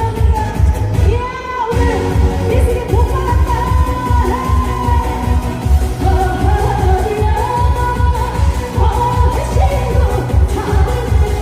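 Woman singing a Korean trot song live through the stage PA, over music with a steady, heavy beat that drops out briefly about two seconds in.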